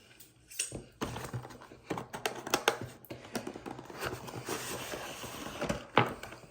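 Packaging being handled and set aside: a quick run of small taps and knocks over rustling, with a sharper knock near the end.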